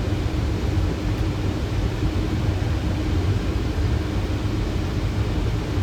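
Steady rushing airflow and engine noise on a Boeing 737 flight deck on final approach, with gear down and flaps 30, under a faint steady hum.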